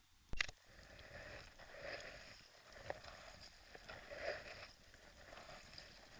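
Water swishing and lapping against a kayak in repeated swells about once a second, after one sharp knock on the hull near the start.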